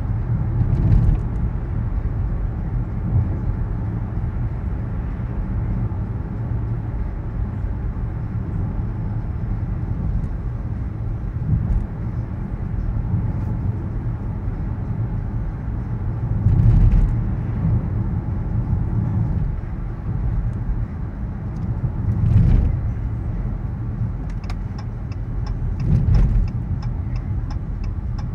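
Road and tyre noise inside a moving car's cabin: a steady low rumble that swells briefly four times as other vehicles go by. Near the end a quick, regular ticking starts over it.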